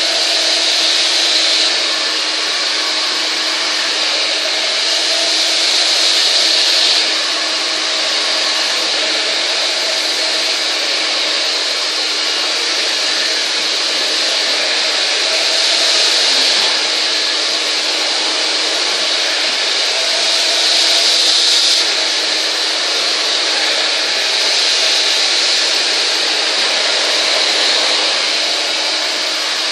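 Handheld hair dryer running continuously while blow-drying long hair: a steady rush of air over a constant motor hum, the air noise swelling and easing every few seconds as the dryer is moved around the head.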